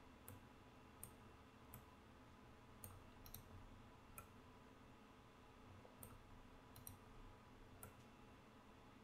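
Faint, irregular clicks of a computer mouse and keyboard, about a dozen, over a low steady hum from the recording.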